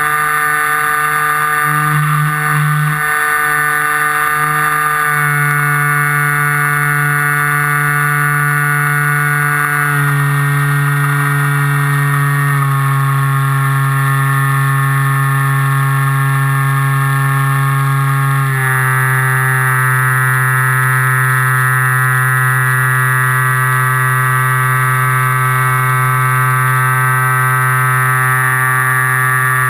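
FPV model aircraft's motor and propeller heard from the onboard camera, a steady loud drone that steps down in pitch four times as the throttle is eased back in stages.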